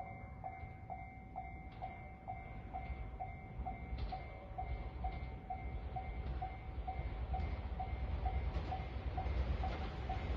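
Japanese railway level-crossing alarm bell ringing, a short clang repeated about twice a second, warning that a train is coming. A low rumble from the approaching train grows louder toward the end.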